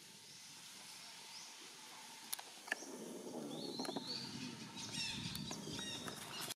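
High-pitched animal calls in the second half: one note rises and is held, then several quick falling chirps follow, over a low rustling. Two sharp knocks come shortly before the calls.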